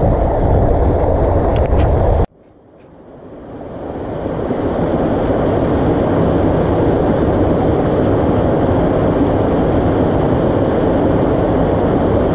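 Steady rush of creek water pouring over a low concrete spillway. It cuts out abruptly a little over two seconds in, then fades back up to the same steady rush over the next few seconds.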